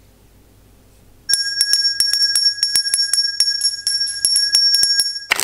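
Small brass hand bell rung rapidly, its clapper striking several times a second over a steady high ring. It starts about a second in and cuts off suddenly near the end.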